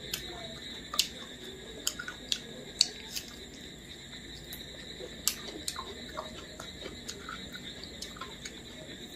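Close-miked eating by hand: scattered wet mouth clicks, lip smacks and chewing as rice mixed with curry is eaten, over a steady faint high-pitched background tone.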